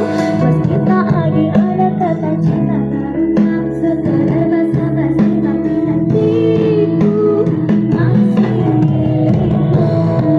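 Pop song with a singing voice and plucked guitar, played through a mini amplifier being tested.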